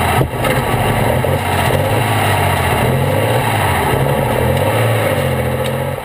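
Pulling tractor's engine running at low revs with the tractor standing still, heard close to its twin open exhaust stacks; the pitch stays low and wavers only slightly.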